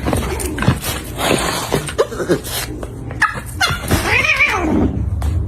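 A cat and a dog vocalizing: a run of short gliding yelps and whines, then one long rising-and-falling cry about four seconds in.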